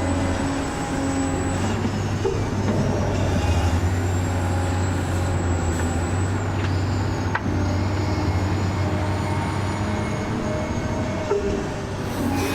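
Electric motors and gearboxes of radio-controlled model trucks running steadily, with a high motor whine that slowly shifts in pitch over a low hum.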